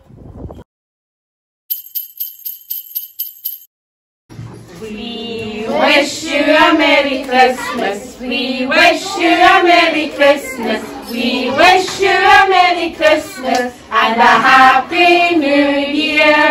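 Jingle bells are shaken in a quick, even run of strokes for about two seconds. After a short silence, singing starts about four and a half seconds in.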